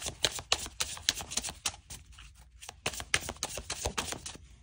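Tarot cards being shuffled by hand: a quick, irregular run of card clicks and flicks, with a short pause about two seconds in.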